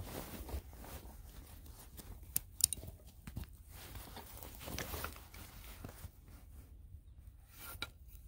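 Gloved hands working at a backpack's straps and buckles to free a strapped-on hatchet: soft fabric and webbing rustling with a few sharp clicks, the loudest about two and a half seconds in.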